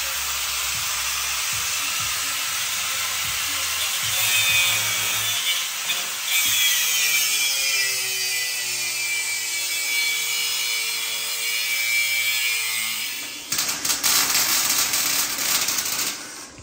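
Corded angle grinder grinding metal on a golf cart's front end, a dense hiss with a whine that wavers in pitch as the disc is pressed into the work. About three-quarters of the way in it gives way to a harsh, rapid, irregular crackling that stops just before the end.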